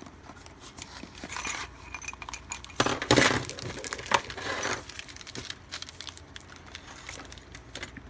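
Small metal screws and hardware rattling in plastic bags as a small cardboard box is emptied onto a table, with plastic crinkling. The loudest clatter comes a little after three seconds in, with another about a second later.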